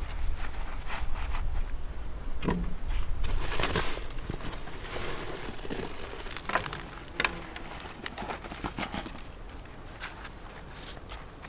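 Gloved hands and a plastic scoop working potting soil around succulents in a log planter: soft, irregular crumbling, rustling and scraping of soil, with a couple of sharper ticks about six and a half and seven seconds in.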